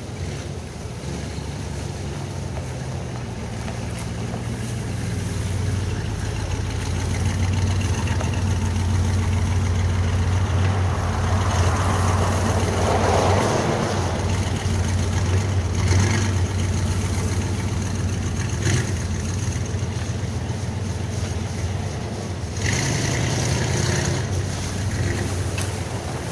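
Vehicle engine running steadily, growing louder through the middle, with wind buffeting the microphone.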